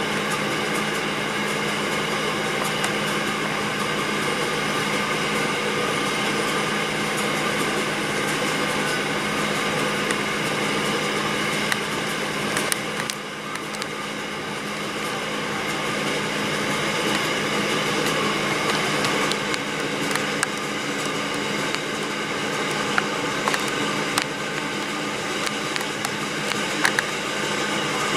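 Karara Mining magnetite ore wagons rolling steadily past at a level crossing: a continuous rumble and clatter of steel wheels on rail, heard from inside a car.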